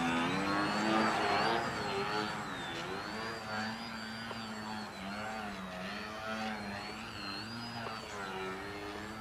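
Electric brushless motor and propeller of a Crack Yak foam 3D RC plane in flight, a steady buzzing whine whose pitch keeps rising and falling with the throttle, a little louder in the first couple of seconds.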